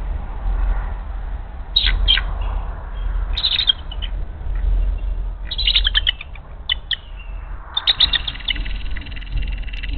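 Bald eagle chattering alarm calls: bursts of rapid, high-pitched piping notes, with the longest run near the end, raised at an intruding eagle. A steady low hum runs underneath.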